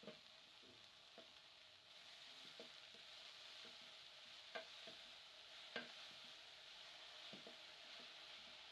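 Wooden spoon stirring chopped collard greens (sukuma wiki) in an aluminium pot, with scattered soft knocks of the spoon against the pot; the loudest two come about four and a half and six seconds in. Under it runs a faint, steady sizzle of the greens cooking.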